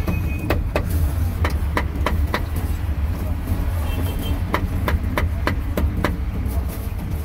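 Meat cleaver chopping roast pork on a chopping board in two quick runs of about six chops each, with a short pause between. Under it runs a steady low rumble of road traffic.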